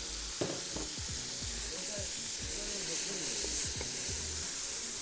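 Beef brisket and freshly added chili, shallot and garlic paste sizzling in a large stainless steel pot, the paste's moisture deglazing the browned bits on the bottom. A wooden spoon scrapes and knocks against the pot as it is stirred.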